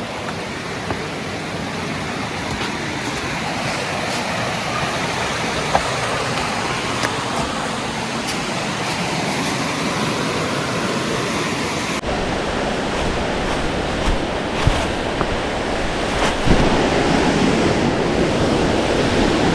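Waterfall: a steady rush of falling water that slowly grows louder, with a few small knocks.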